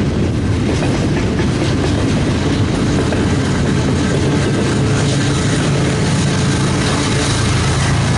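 BNSF freight train rolling past with a steady rumble of wheels on the rails. From about five seconds in, the low drone of a diesel locomotive's engine grows stronger.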